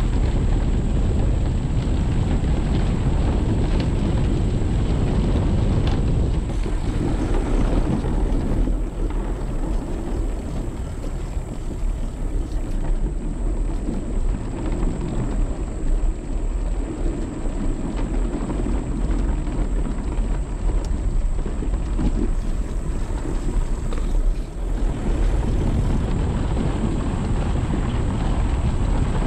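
Trek Domane AL road bike rolling over wooden boardwalk planks, its tyre noise mixed with wind rushing over the microphone in a steady low rumble. A thin, steady high tone runs over it throughout.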